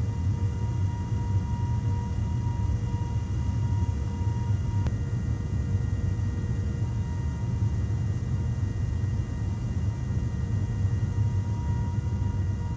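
Steady aircraft drone inside a refuelling tanker during boom contact with an E-3 Sentry: a heavy low rumble of engines and airflow with several steady whining tones over it, and a faint tick about five seconds in.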